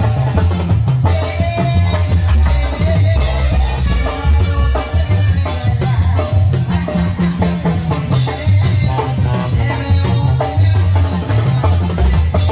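Live tamborazo band playing: horn melody lines over a steady bass pulse, with drum kit and percussion keeping the beat.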